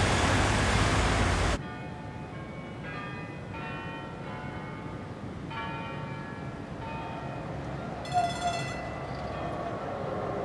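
Car and street noise that cuts off suddenly about one and a half seconds in, followed by church bells sounding several separate strokes that ring on and overlap, with a short sharp sound a little after eight seconds.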